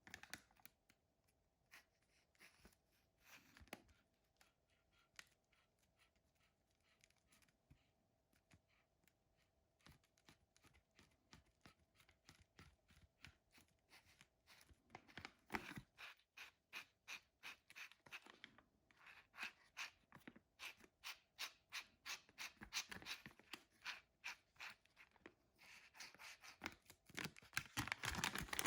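Faint handling noises of packaging: quick clicks, scratches and rustles, sparse at first and growing busier from about halfway, densest near the end.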